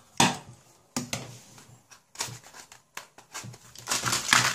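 Scissors cutting a paper mailing envelope: a few separate short snips, then a louder rustle of paper and plastic packaging near the end.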